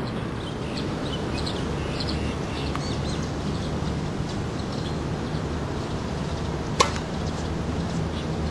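A tennis ball struck by a racket: one sharp pop about seven seconds in, over a steady low background rumble with faint high chirps.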